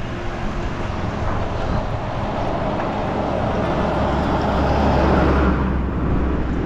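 A diesel lorry passing close in the oncoming lane, its engine rumble and tyre noise swelling to a peak about five seconds in and then falling away, over steady road noise.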